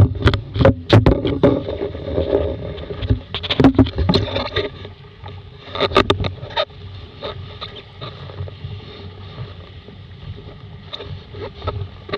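Laser dinghy under sail, heeled hard: water rushing and splashing along the hull with a run of knocks and bangs in the first half, settling into a steady wash of water and wind.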